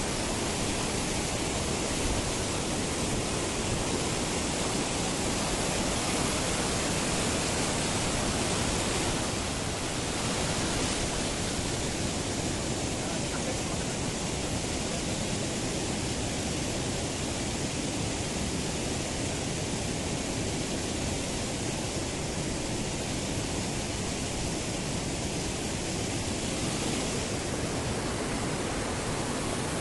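Steady rush of fast-flowing stream water, an even, unbroken noise.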